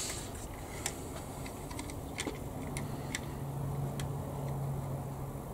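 Small irregular clicks and taps of plastic model parts being handled, as a tiny tail wheel is worked into the undercarriage of a plastic model aircraft, over a steady low hum that grows a little louder about three seconds in.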